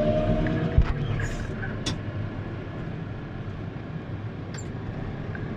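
Tractor diesel engine pulling a mounted plough, heard inside the cab as a steady low hum. A high whine stops about a second in, with a single knock at the same moment.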